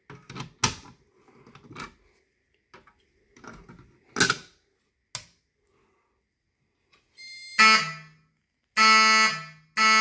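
Fire alarm horn-strobe sounding a few short, loud horn blasts in the last few seconds, the walk-test signal that tells which zone has been tripped, here zone 2. In the first half come sharp clicks and knocks from a Fire-Lite BG-12 pull station being opened with its key.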